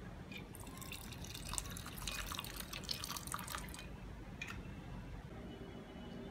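A drink poured from a small glass into a glass tumbler over ice cubes, splashing and trickling for about three seconds. There is a light click just before the pour and another shortly after it.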